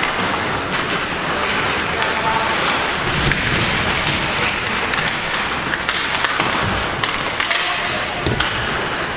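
Ice hockey play: skate blades scraping on the ice, with scattered sharp clacks of sticks and puck over steady rink noise.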